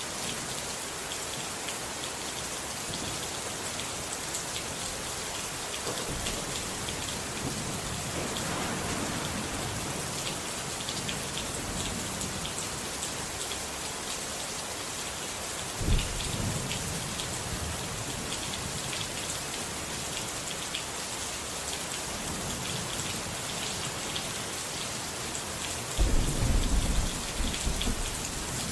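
Steady heavy rain falling, with thunder: a sudden low rumble about halfway through and a louder rolling rumble near the end.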